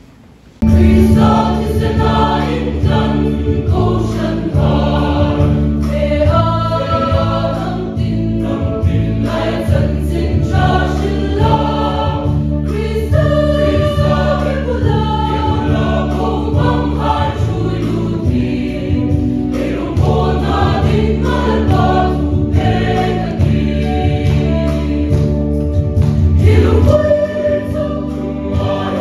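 A choir singing Christian gospel music over a strong bass accompaniment, starting abruptly under a second in.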